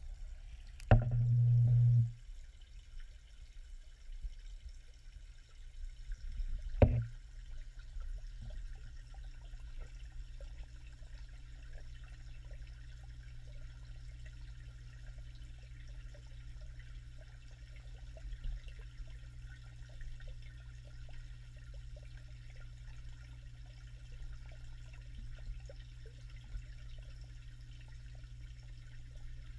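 Muffled water sound picked up by a camera submerged in a fish pond: a steady low hum with faint trickling. There are two sharp knocks, about one and seven seconds in, the first followed by a short low rumble.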